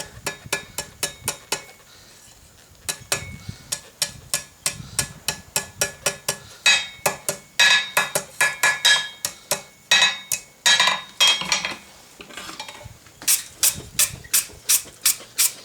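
Hand hammer striking hot steel bar on an anvil, a steady run of blows at about three to four a second with two short pauses. The louder blows in the middle ring out metallically.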